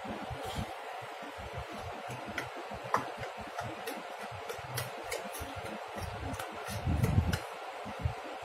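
A Labrador licking a block of ice on a steel plate: scattered wet tongue clicks and smacks at an irregular pace, with a louder low bump about seven seconds in, over a faint steady hum.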